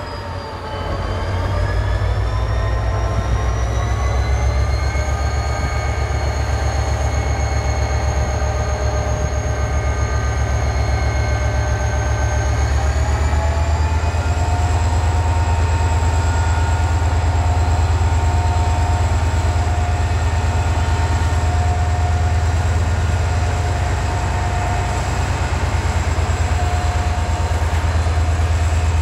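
HŽ series 2044 diesel-electric locomotive, freshly overhauled, working hard as it pulls a full freight train away: a heavy low engine rumble with a whine on top. About a second in the sound gets louder and the whine rises in pitch; it steps up again about halfway through, then holds steady.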